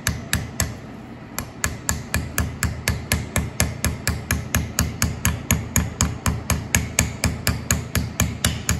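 Hammer tapping quickly and evenly, about four to five light blows a second, driving a new shaft seal into the bore of an Allis-Chalmers WD45 PTO housing by striking around the seal's outer edge. The tapping pauses briefly about a second in, then carries on.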